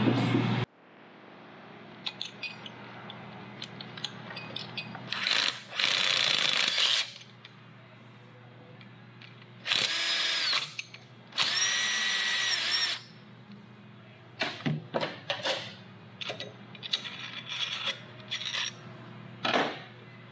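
A drill-type power tool runs in three bursts of a couple of seconds each, winding up, holding speed and winding down, with scattered clicks and knocks between them. A loud sound at the very start cuts off abruptly within the first second.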